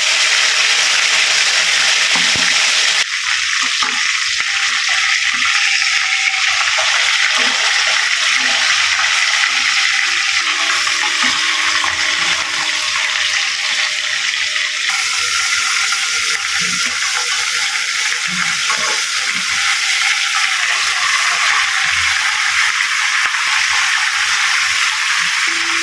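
Tandoori chicken sizzling in hot oil on a tawa: a loud, steady frying hiss with small crackles, which changes in tone twice, about three and fifteen seconds in.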